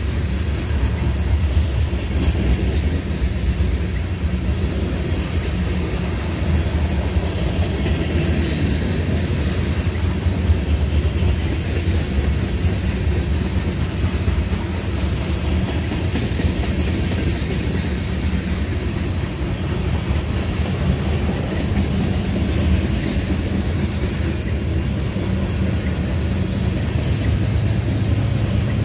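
Loaded covered hopper cars of a freight train rolling past close by, the steel wheels rumbling and clacking over the rail joints. Near the end a low steady hum comes in as the rear distributed-power locomotive, an EMD SD70ACE diesel, draws up.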